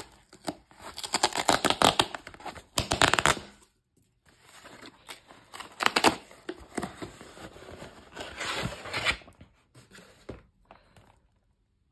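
Cardboard mailer envelope being torn open by hand: ripping of cardboard and paper tape in several bursts, the longest and loudest in the first few seconds, tailing off to faint handling clicks near the end.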